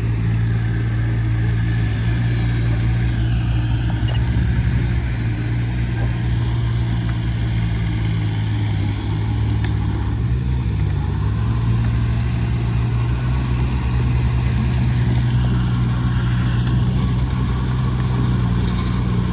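Heavy diesel engine of earth-moving equipment running steadily under work, its pitch dipping and recovering briefly about halfway through.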